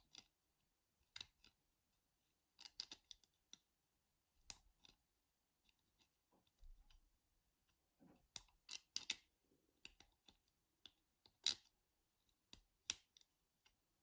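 Faint, irregular metallic clicks of a lever-lock pick and tension tool working the levers inside a Squire 660 four-lever padlock, with a few sharper ticks in the second half.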